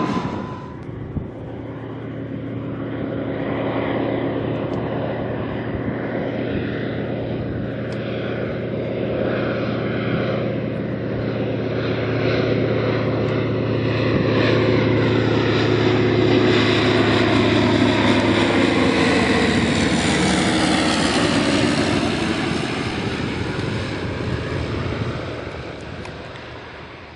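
A single-engine propeller plane passing close by. The engine grows louder and is loudest past the middle, then its pitch drops and it fades away near the end.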